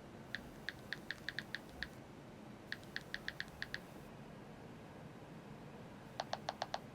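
Keyboard typing: three quick runs of key taps, about eight, then seven, then five, with the last run louder and sharper.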